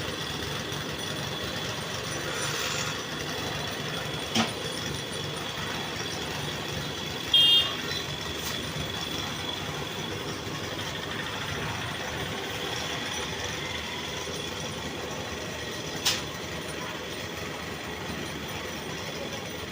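Construction machinery engine running steadily, with a sharp knock about four seconds in and another near the end, and a short, high beep about seven seconds in.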